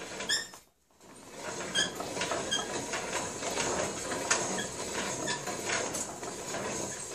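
Wooden barrel reamer being hand-cranked through a steel rifle barrel: a steady rasping scrape of the cutter in the bore, with short high squeaks about once a second as it turns. A brief gap breaks it near the start.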